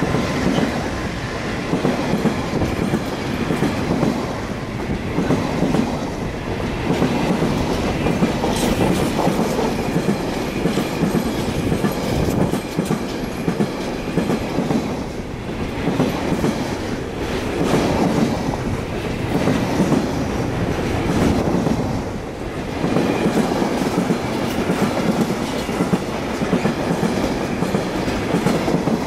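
Loaded container wagons of a long freight train rolling past at close range: a continuous rumble of wheels on rail that swells and eases every couple of seconds as the wagons' wheelsets go by.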